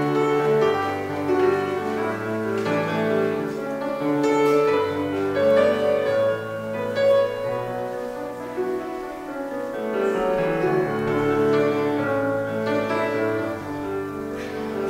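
Instrumental postlude on piano: slow chords and melody notes held and changing every second or so.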